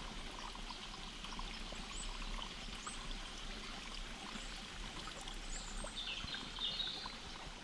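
Steady rush of running water from a stream, with a few short bird chirps above it.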